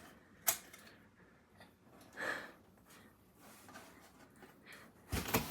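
Mostly quiet room with a sharp click about half a second in and a faint breath. Near the end comes a sudden thump followed by rustling, as a person lands on the floor.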